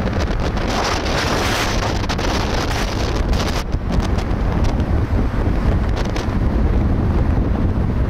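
Wind buffeting the microphone of a camera riding on a car at highway speed, over a steady low road and tyre rumble. The windy hiss is strongest in the first half and thins out later.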